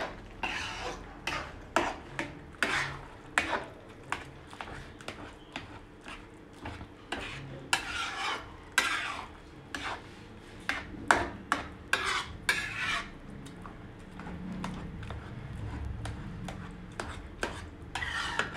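Metal spatula stirring and scraping thick pav bhaji around a metal kadai, with irregular scrapes and clinks against the pan.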